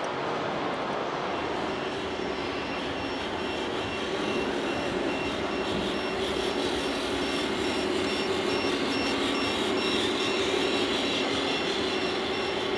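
RC scale trucks running with a steady mechanical hum, with a rapid repeating high beep that starts about a second and a half in and carries on.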